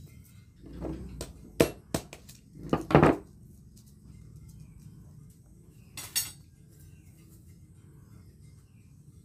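A handful of sharp metallic clanks as blacksmith's tongs and a hot steel billet knock against the anvil and forge: several in the first three seconds, the loudest near the third second, then one more about six seconds in.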